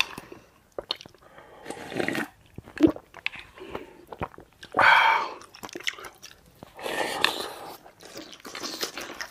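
A person eating: chewing and crunching food, with short clicks and a few louder noisy bursts about two, five and seven seconds in.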